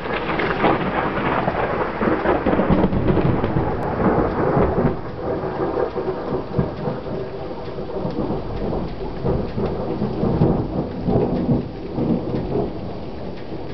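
Thunder from a very close lightning strike: it starts suddenly and rolls on in uneven rumbling waves for about twelve seconds. Near the end it fades into the steady sound of rain.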